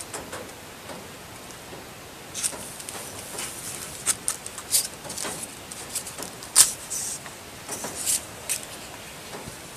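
Paper and card being handled, with yarn drawn through stitch holes in a card booklet cover: a string of short, scratchy rustles and clicks that starts about two seconds in.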